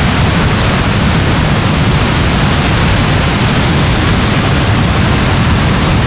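Heavy rain falling: a steady, dense hiss with a deep rumble underneath and no separate drops or gusts standing out.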